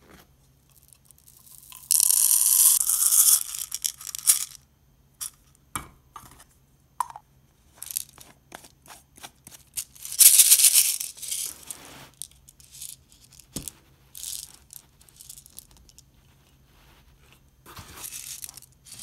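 Small sound balls rattling inside a clear plastic BeatJack capsule shaker as it is handled and shaken, in several bursts of a second or two with sharp clicks of plastic between them.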